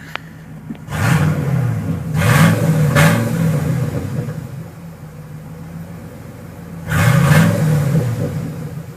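1995 Ford F-150's 5.0-litre V8 running with no muffler, its exhaust cut back to one catalytic converter. The engine is revved in a few quick blips about a second in and settles back to a steady idle. It is revved once more near the end.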